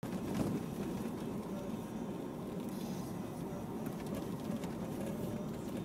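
Range Rover driving on a dirt road, heard from inside the cabin: a steady rumble of engine and tyres on the loose surface, with scattered small clicks and rattles.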